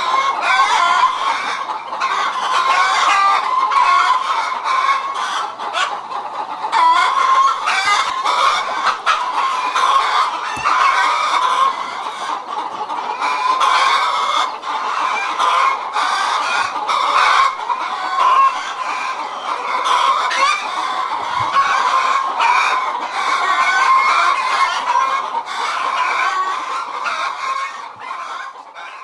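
A flock of domestic chickens clucking continuously, many birds calling over one another. The calls fade out at the end.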